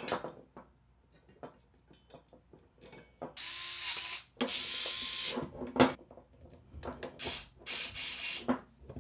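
Electric screwdriver driving screws into a PC case's power-supply adapter bracket, in short runs of about a second each, with small clicks and a sharp knock of handling between them.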